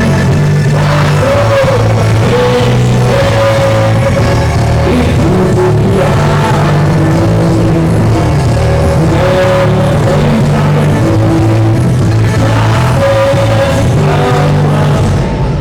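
Loud music with a singing voice holding long notes over a heavy, steady bass line.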